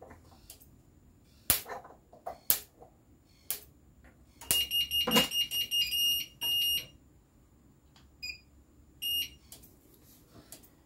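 Three sharp ticks about a second apart, then a Nemtek Wizord 4 electric fence energizer's buzzer sounding a run of high electronic beeps for about two seconds, followed by two more short beeps.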